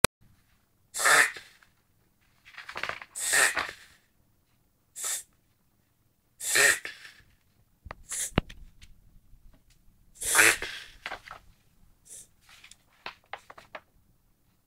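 Whippet reverse sneezing: a string of loud, harsh breaths pulled in through the nose, about seven of them a second or two apart, tailing off into smaller quick snuffles near the end. It is a throat spasm (kehlkopfkrampf) that makes the dog draw air in sharply.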